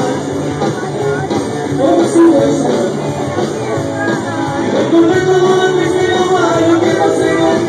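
Loud dance music with a singing voice over the band, played for a crowd dancing.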